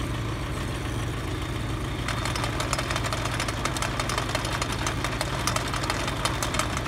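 Tractor engine running steadily, powering a post-hole-digger gearbox that turns a drill pipe for a water well. From about two seconds in, a rapid, irregular clatter of knocks rides over the engine.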